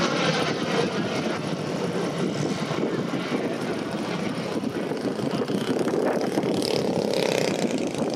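Kolm four-stroke boxer engine and propeller of a clipped-wing Cub model plane in flight, running steadily. The drone is softer and less distinct than just before, as the plane flies farther off.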